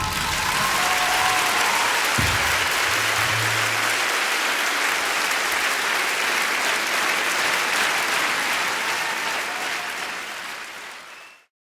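Large audience applauding, a steady dense clapping that fades away near the end and then cuts off. A single low thump sounds about two seconds in.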